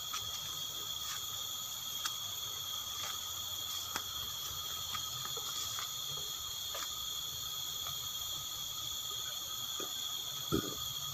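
Steady chorus of forest insects: several high-pitched drones layered at once, unbroken throughout, with a few faint clicks.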